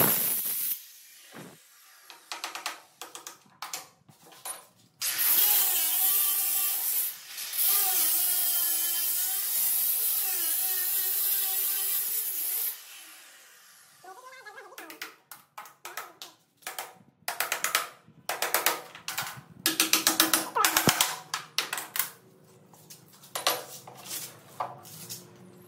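Handheld electric cutter with a stone-cutting disc grinding into a stone countertop: one long continuous cut of about seven seconds, its motor pitch wavering under load, with many short bursts of cutting before and after it.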